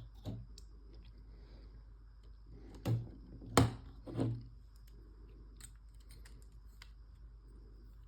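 Hard plastic LEGO pieces clicking and knocking as the model is handled and set down on a surface: a few light clicks, then three sharper knocks between about three and four and a half seconds in, with scattered ticks after.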